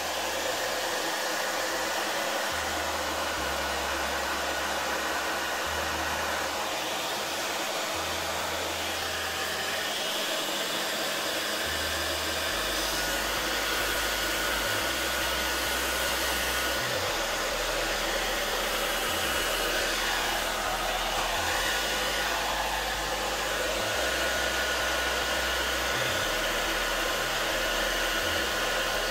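Handheld hair dryer running steadily on its low setting, its air blowing wet acrylic pour paint outward across the canvas to open up the blooms and cells.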